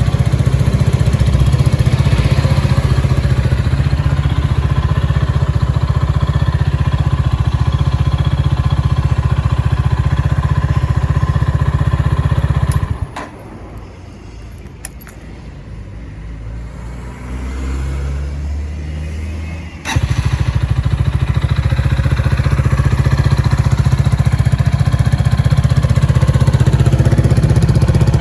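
Gilera AC4 250cc single-cylinder motorcycle engine running steadily and loudly. About halfway through, the loud running cuts out, leaving a quieter stretch with a few clicks and a lower, uneven sound. A few seconds later the full engine sound comes back abruptly.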